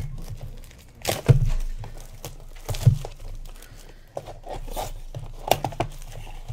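Plastic wrapping being torn and crumpled off a sealed box of trading cards, with a few sharp rips, the loudest about a second in.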